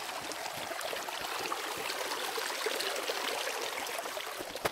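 Shallow creek water running over rocks, a steady rush.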